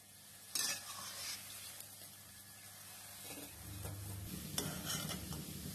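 Hot oil sizzling softly around sweet fritters deep-frying in a kadai, with a few scrapes and light clinks of a perforated steel ladle lifting them out.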